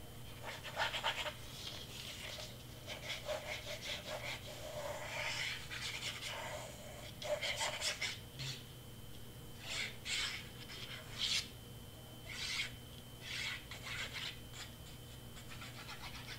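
The tip of a squeeze bottle of liquid craft glue scratching and rubbing across cardstock as lines of glue are drawn, in short irregular strokes.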